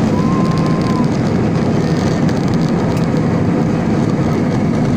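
Cabin noise aboard an Airbus A320-216 during takeoff: its CFM56 turbofans at takeoff thrust together with airflow and airframe rumble, a loud, steady rumble heavy in the low range.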